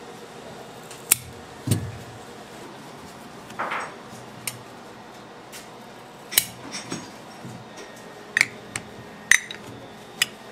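Irregular sharp clicks and taps of tools being handled on a candy-making work table: scissors and a lollipop stick, with a short scrape about three and a half seconds in. There are about ten in all over a steady low background.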